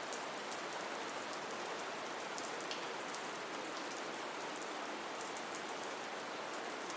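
Steady, soft rain falling, with faint scattered ticks of single drops.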